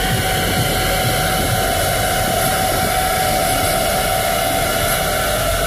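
Diesel truck engine running steadily, a loud even rush of noise with a steady whine over it.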